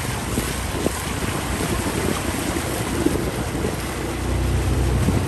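Wind buffeting the microphone over a low motor rumble, with a steadier engine note coming in about four seconds in.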